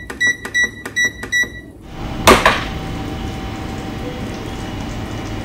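Panasonic SR-ZG185 rice cooker beeping as its Menu Select key is pressed repeatedly to step through the menus to slow cook: a quick run of short, high beeps, about four a second, for almost two seconds. Then a single knock, followed by a steady low noise.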